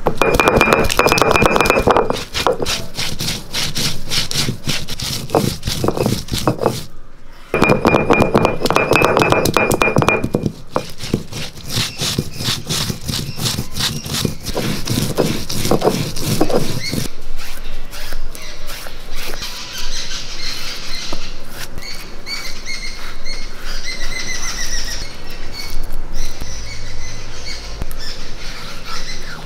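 Stone roller grinding whole spices into a wet paste on a flat grinding stone: fast rasping back-and-forth strokes with a high squeal at times. The grinding stops about halfway through, and birds chirp after it.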